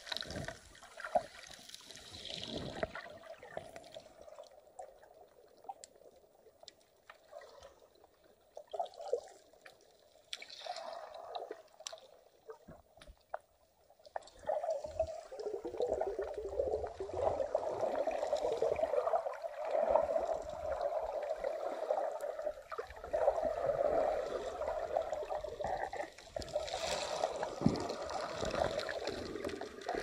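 Shallow sea water sloshing and gurgling, heard muffled from underwater, with scattered small clicks. The water noise grows louder and steadier about halfway through.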